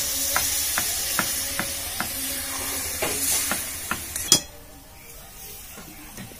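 Chicken curry sizzling and hissing in a metal pan as a little water is poured in, with a spatula clicking against the pan about twice a second as it is stirred. A sharp clack comes about four seconds in, after which the hiss drops away and the stirring clicks go on more quietly.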